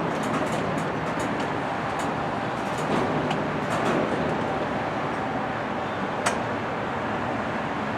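Train cars rolling past on the rails: a steady rumble with scattered clicks from the wheels, and one sharper click about six seconds in.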